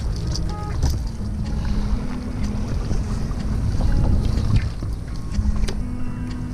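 Wind rushing over the microphone at the sea shore, a steady low rumble with surf washing behind it.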